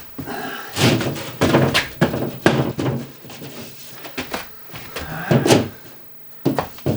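A run of knocks, thuds and scrapes from a drywall sheet being handled and cut, busiest in the first five seconds, with two more sharp knocks near the end.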